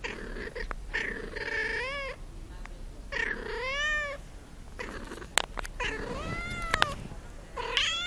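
A cat meowing up close: four drawn-out meows, each about a second long, bending up and then down in pitch. A couple of sharp clicks fall between the last two meows.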